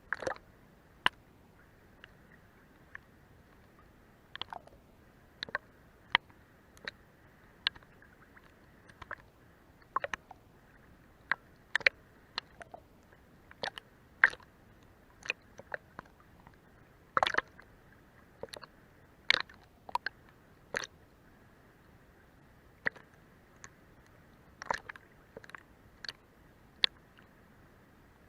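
Seawater slapping and splashing against a boat's hull in irregular short, sharp slaps over a faint steady hiss.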